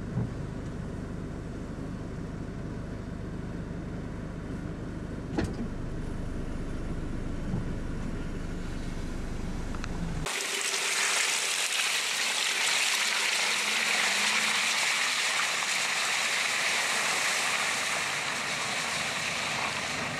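Off-road vehicles on a muddy track: a steady low engine rumble, then, after an abrupt cut about ten seconds in, a steady hiss of tyres running through water and mud.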